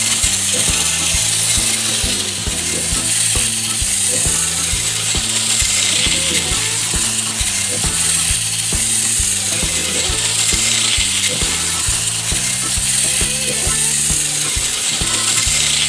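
Wind-up spring motor and plastic gears of a capsule Plarail E4 Series MAX toy shinkansen whirring steadily as the three-car train runs around a plastic oval track.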